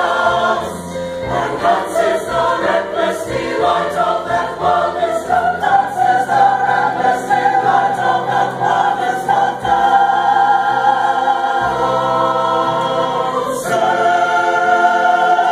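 Men's choir singing in parts, the notes moving quickly at first and then settling into long held chords in the second half.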